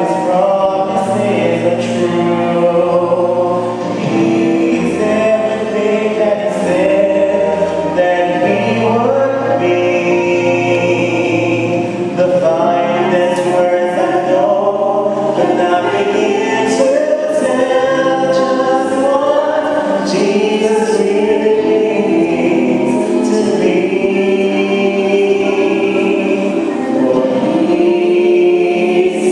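Choir singing a gospel hymn, many voices holding long sustained notes.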